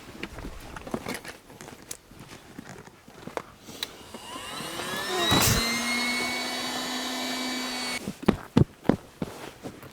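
Small electric air pump starting up with a rising whine, running steadily for a few seconds, then cutting off suddenly, followed by a few knocks of handling. Its sound fits inflating a new inflatable tent.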